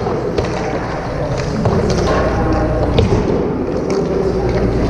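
Hockey sticks and pucks knocking on the ice and boards: about four sharp, separate clacks, over a steady low hum and the scrape of skate blades on ice.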